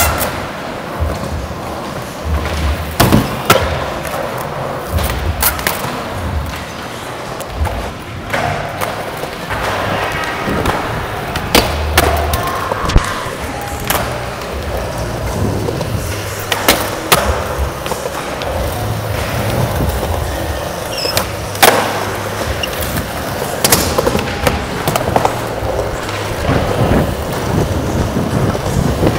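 Skateboard wheels rolling over a concrete floor, broken by sharp clacks and thuds of boards popping, landing and hitting rails and ledges, several of them loud.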